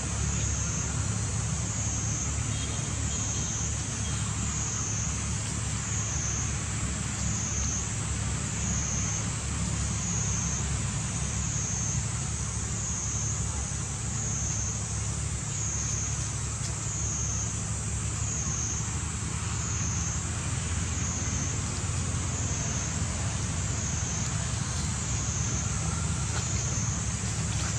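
Steady outdoor background noise: a low rumble under a high, wavering buzz that swells and fades about every second and a half.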